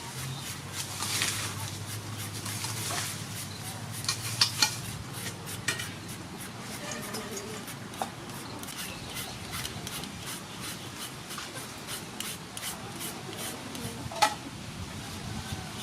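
Kitchen utensils stirring and scraping in a pot or bowl, with many small clicks and clinks and a few sharper knocks, about four and a half seconds in and again near fourteen seconds.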